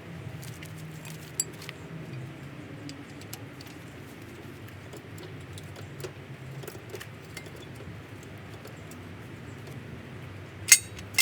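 Light metallic clicks and ticks of tools and wheel hardware over a low steady hum, with two sharp metal clanks near the end.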